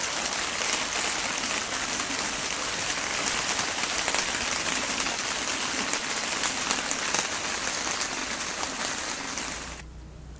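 Heavy rain falling steadily, a dense hiss of many small drop hits; it cuts off suddenly near the end.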